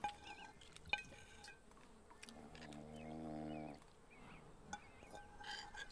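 A man snoring: one long, steady snore about two and a half seconds in, lasting just over a second.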